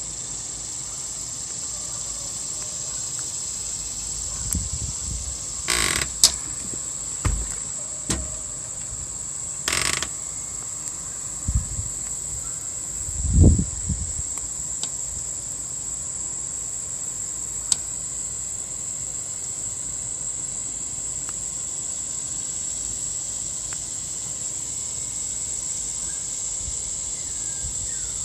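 Steady high-pitched insect chorus, a continuous trill. In the first half, several knocks and low thumps of the camera being handled, the loudest about thirteen seconds in.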